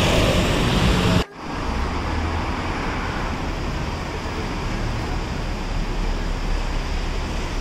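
Steady road traffic noise from cars driving along a city street. About a second in, a louder, busier din cuts off abruptly and the steady traffic sound takes over.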